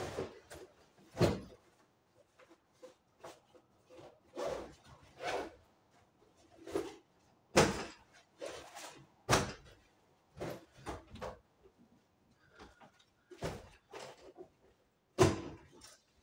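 Handling noises as a school backpack is opened and emptied: irregular rustling and shuffling of fabric, paper and notebooks, with several louder knocks and thumps spread throughout.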